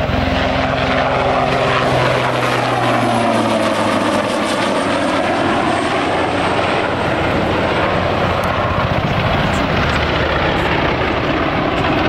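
Super Puma helicopter's twin turboshaft engines and main rotor running loud and steady in a display flight. Its whine sweeps down and back up in pitch through the middle, and a low rotor hum fades out after the first few seconds.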